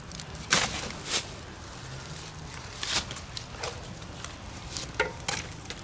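Pieces of soft, punky, partly wet wood being handled and broken for a small campfire: about five sharp snaps and knocks at irregular intervals, with rustling between.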